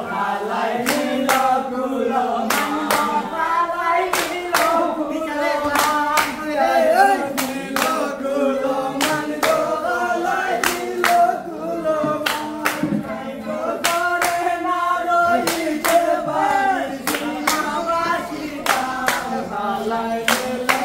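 A group of men singing a Sylheti dhamail folk song together, with rhythmic hand claps keeping the beat.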